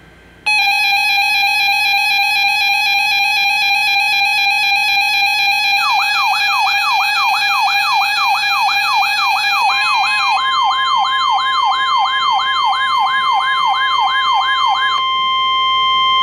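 Layered electronic alert tones. A steady buzzy alarm tone starts, and about six seconds in a fast rising-and-falling siren wail joins it. About ten seconds in, a steady single-pitched alert tone takes over and carries on alone after the wail stops near the end.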